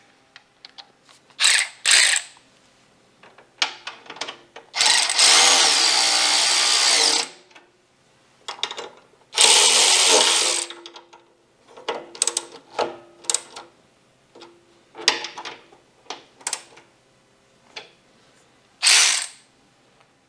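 Cordless electric ratchet running in repeated bursts, the two longest about two seconds each, with clicks and knocks of the tool and parts between them.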